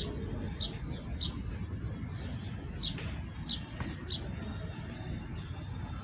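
Sparrows chirping: a handful of short, sharp, falling chirps at irregular spacing, most of them in the first four seconds, over a steady low background rumble.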